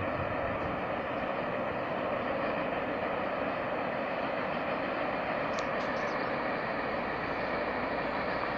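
Freight train passing at a distance: a steady, even rumble of the wagons rolling along the track, with a few brief high squeaks about five and a half to six seconds in.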